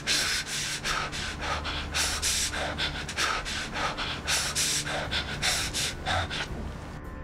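A man breathing hard and fast, quick ragged gasps two or three a second, which stop near the end.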